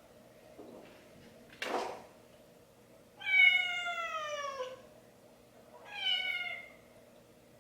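A cat meowing twice: a long call with falling pitch, then a shorter one. A brief rustling burst comes just before them.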